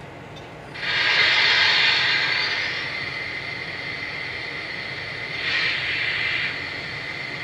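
Onboard sound system of a Lionel Legacy Nickel Plate Road 2-8-2 Mikado model steam locomotive, standing still and playing a recorded steam hiss during its Sequence Control routine. A loud hiss starts about a second in and eases after a couple of seconds into a steady lower hiss, then swells again for about a second past the middle.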